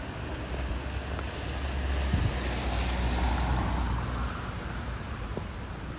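A car driving past on a wet road, its tyre hiss swelling to a peak about halfway through and then fading away, over a steady low rumble.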